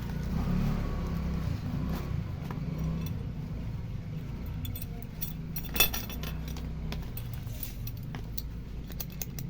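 Light clicks and clinks of small hard objects being handled, the sharpest one about six seconds in, over a steady low rumble.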